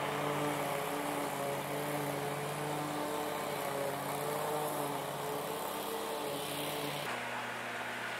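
Lawn mower engine running steadily, its pitch shifting a little as the load changes. The sound changes abruptly about seven seconds in.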